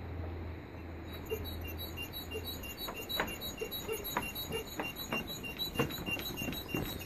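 Running footsteps on the wooden plank deck of a suspension bridge. They start about three seconds in and grow louder as the runner comes closer. Through most of it there is a steady run of short high squeaks, about four a second.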